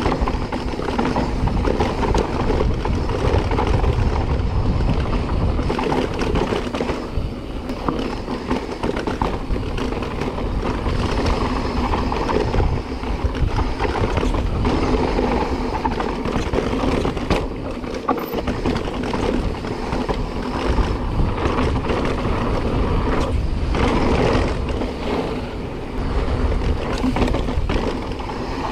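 A 2021 Specialized Stumpjumper Evo mountain bike rolling fast down dry dirt singletrack: tyres crunching over dirt and loose stones, with frequent short knocks and rattles from the bike over bumps. Steady wind rumble on a chest-mounted action camera's microphone underlies it.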